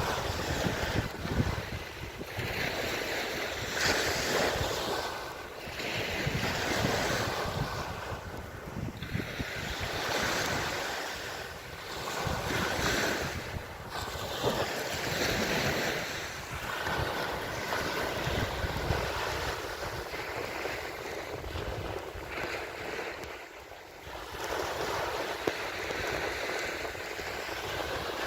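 Sea waves washing ashore, the surf swelling and easing every few seconds, with wind buffeting the microphone.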